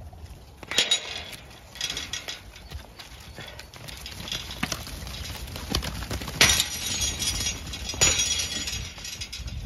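A flock of Zwartbles sheep jostling and trotting, their hooves and bodies making irregular knocks and clatters, with a few louder clattering bursts.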